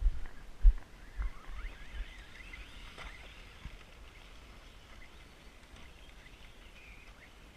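Birds chirping faintly, with a few low thumps on the microphone in the first second or so.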